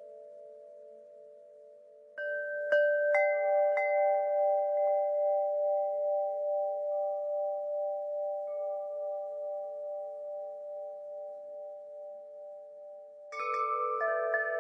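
Wind chimes ringing. A few strikes come close together about two seconds in, their tones ring on and slowly fade for about ten seconds, and a fresh cluster of strikes comes near the end.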